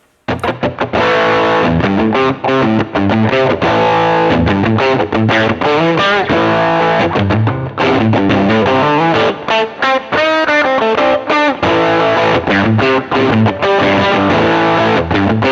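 Electric guitar through a drive pedal, a Heritage Les Paul on its Gatekeeper H90 bridge humbucker into the GK-Drive, playing distorted riffs of fast picked notes and chords with short stops between phrases. It comes in sharply a fraction of a second in.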